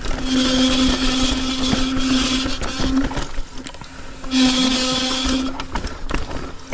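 Mountain bike freehub buzzing while the rider coasts down a loose, rocky descent. The buzz stops around 3 seconds in, when the rider pedals, and comes back about a second later. Under it the bike rattles and knocks over the rocks.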